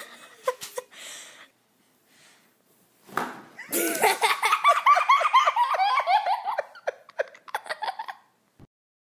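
A short burst of noise about three seconds in, then a person laughing hard in rapid, repeated bursts for about four seconds, trailing off near the end.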